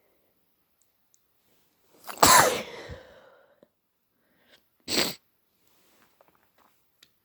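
A man sneezes once, loudly, with a voiced cry that falls in pitch and trails off over about a second. The sneeze is deliberately induced to clear a blocked nose. A second short, sharp burst follows about three seconds later.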